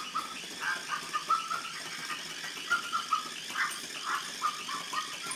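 Two small terriers playing and making short, high-pitched yips and whines, several a second in an irregular run.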